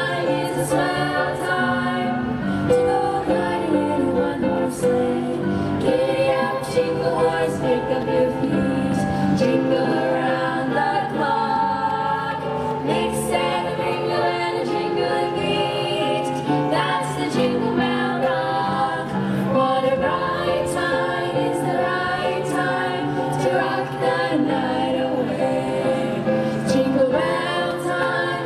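Youth choir singing a song, several voices together with musical accompaniment.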